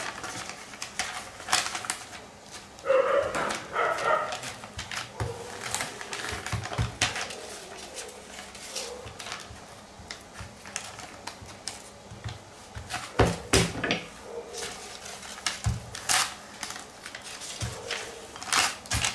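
Butter paper crinkling and rustling as paratha dough is pressed out by hand and rolled with a wooden rolling pin on a marble board, giving many short, sharp crackles and taps. A few short pitched sounds come in the background, the clearest about three seconds in.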